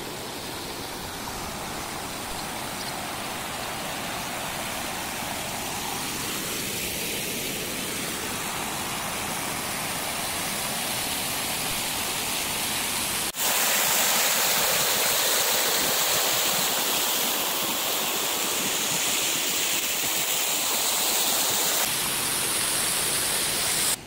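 River water rushing over a rock shelf toward the edge of a waterfall: a steady rush, which jumps louder and hissier at a cut about thirteen seconds in.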